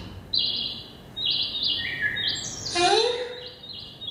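Animated-cartoon soundtrack playing over loudspeakers in a lecture room: a quick run of short, high, birdlike chirps at shifting pitches. About three seconds in, a voice slides up in pitch.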